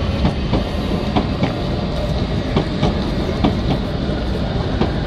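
Oslo Metro MX3000 subway train rolling slowly past the platform: a steady low rumble with sharp wheel clicks over the rail joints every few tenths of a second, and a faint high whine.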